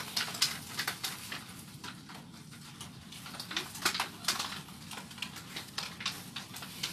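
Irregular crinkles and clicks of plastic bags and cardboard egg trays being handled while relief packs are put together.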